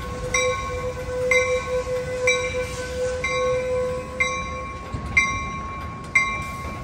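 Amtrak California passenger train's bell ringing about once a second, with a steady high tone under it that stops about four and a half seconds in and a few sharp metallic clanks near the end.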